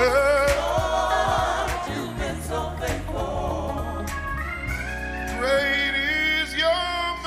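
Live gospel praise and worship music: several singers hold wavering notes and slide up through rising lines over band accompaniment.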